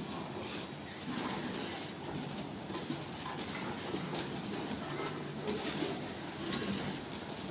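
Freight cars of a CSX train rolling past: a steady rumble of steel wheels on the rails with repeated clicks, a few brief faint squeals, and one sharp clack near the end.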